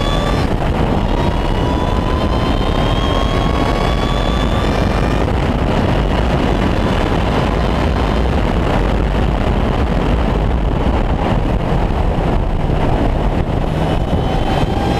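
Ariel Atom 3.5's supercharged Honda 2.0-litre four-cylinder engine at high revs under acceleration, its pitch climbing steadily for the first few seconds. Through the middle, heavy wind rush over the open cockpit covers the engine, and the engine pitch climbs again near the end.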